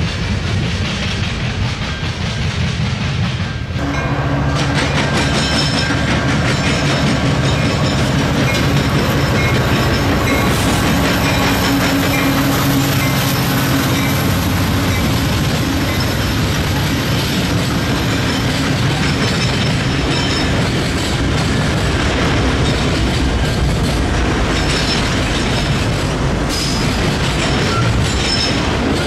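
Freight train passing close by, starting about four seconds in: several diesel-electric locomotives run with a steady low engine drone. Later the freight cars roll past, their wheels clicking over the rail joints.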